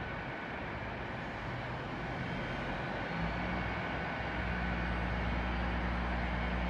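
Great Western Railway multiple-unit train standing at the platform, with a steady hiss of background noise. About three to four seconds in, a deep steady hum from the train starts and carries on.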